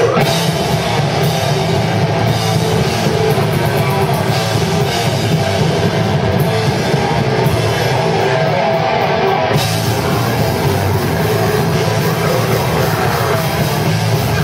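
A deathcore band playing live: distorted electric guitar and a drum kit, loud and steady throughout.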